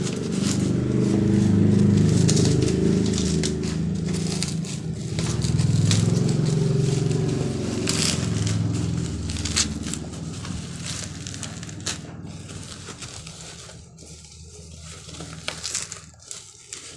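Black plastic mailer bag crinkling and tearing as it is pulled off a taped cardboard box. A low rumble runs under it and fades away about ten seconds in.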